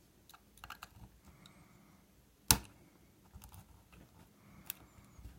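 Metal lock-picking tools clicking and scraping in the keyway of a cheap bike lock as the tension wrench and pick are set in: scattered light ticks, a sharp loud click about two and a half seconds in, and another click near the end.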